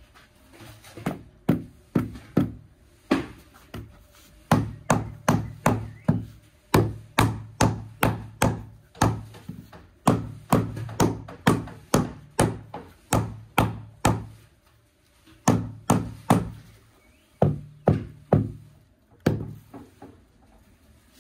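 A rubber mallet knocking a large porcelain paving tile down into its mortar bed. Runs of short, dull knocks, about two to three a second, with brief pauses between the runs.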